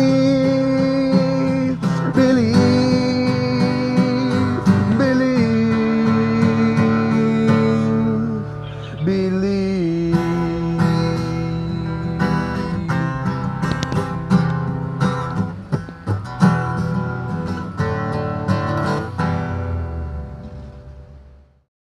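Acoustic guitar strummed and picked as a song's closing section, with a voice holding long wordless notes that step down over the first half. The guitar then carries on alone, fades and stops shortly before the end.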